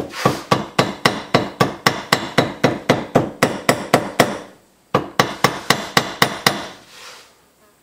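Hammer tapping gasket paper against the metal flange of a small air compressor, cutting a gasket out against its edge. A fast, even run of light strikes, about five a second, stops briefly about four seconds in, then resumes for a shorter run.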